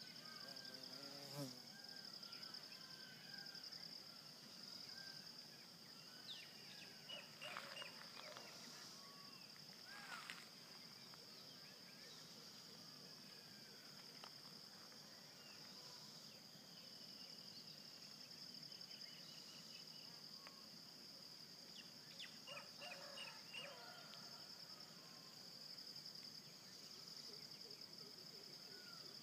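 Faint, steady high-pitched insect chorus, a continuous pulsing trill, with a few short chirps and clicks scattered over it.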